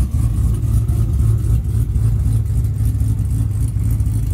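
Truck engine running with a deep, steady rumble.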